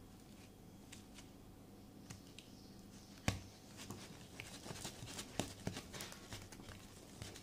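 Fluffy slime of glue and shaving foam being stirred and poked with a plastic stick in a plastic bowl: faint sticky clicks and pops, one sharper click about three seconds in, then a run of quicker clicks through the second half. A low steady hum lies underneath.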